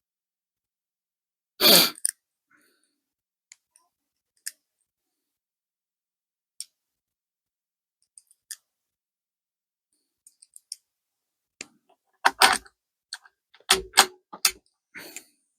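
Clicks and clacks of .22 LR cartridges being loaded into a CZ 457 rifle's magazine and the rifle being handled: one loud clack about two seconds in, scattered light clicks, then a quick run of sharper clacks near the end.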